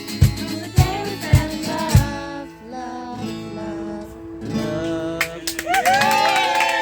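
Music: a guitar band's song with strummed guitar and a steady drum beat, which drops out about two seconds in. It builds again near the end with long sliding notes.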